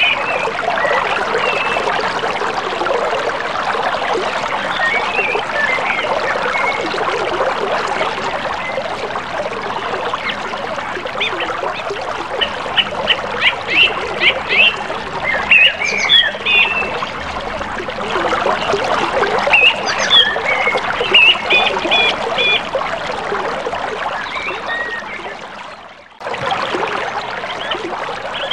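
Flowing river water, an even rushing hiss, with birds chirping over it in quick repeated calls. Near the end the sound fades down and cuts off briefly, then starts again.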